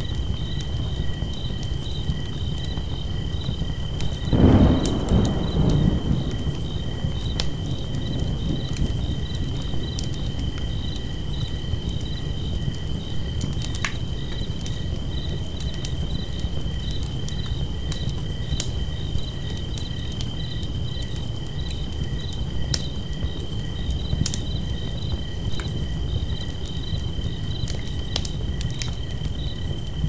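Campfire crackling with scattered sharp pops over a low rumble, with crickets chirping steadily in a pulsing trill throughout. About four seconds in, a louder rumble swells and dies away over a second or two.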